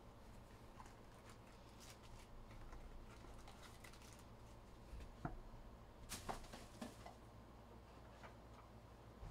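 Faint rustling and light taps of a cardboard card box and foil trading-card packs being handled, with a few sharper clicks about five to seven seconds in.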